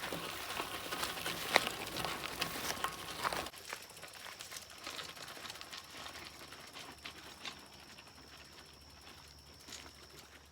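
Bicycle rolling on a gravel trail, tyres crunching with a clicking rattle, cut off suddenly about three and a half seconds in. Fainter scattered ticks and a thin steady high tone follow.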